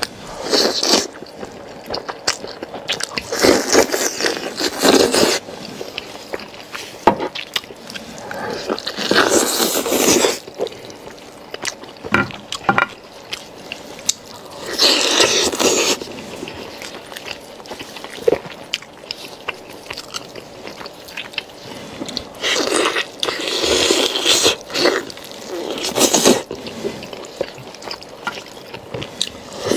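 Close-miked eating sounds: tender braised beef being pulled off the bone by gloved hands, then bitten and chewed with wet squishing. It comes in loud clusters every few seconds, with quieter clicks and smacks between.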